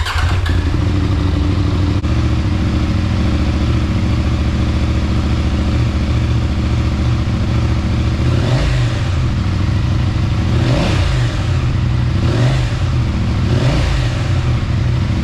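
Husqvarna Norden 901's 889 cc parallel-twin engine, breathing through a Tekmo titanium slip-on exhaust with its baffles removed, idling steadily, then given four short revs in the second half, each rising and dropping back to idle.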